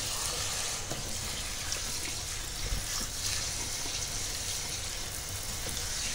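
Kitchen tap running steadily, its stream splashing onto sea moss in a stainless steel colander and into a stainless steel sink while a hand works the seaweed under the water.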